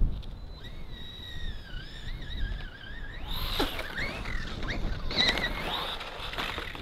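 Force RC Epidemic RC truck's motor whining, its pitch sliding up and down with the throttle. It gets louder from about three seconds in, with quick rising and falling swoops, as the truck churns its tyres through snow and climbs a snow pile.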